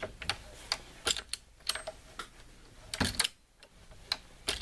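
RCBS Green Machine progressive reloading press being cycled by its lever: a string of light metallic clicks and clacks as the transfer bar shifts empty .40 S&W brass cases along the transfer rails, with a louder clack about three seconds in.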